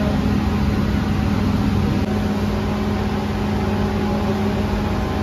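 Steady mechanical hum of bakery machinery, a constant low drone that holds one pitch without change.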